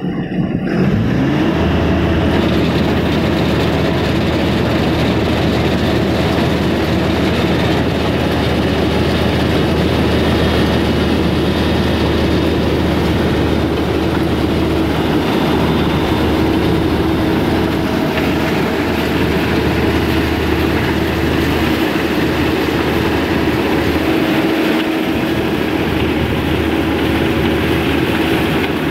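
Kubota DC-35 rice combine harvester running while harvesting: its diesel engine and the turning reel, cutter and auger make a loud, steady mechanical rumble and clatter. About a second in the engine pitch rises as it revs up to working speed.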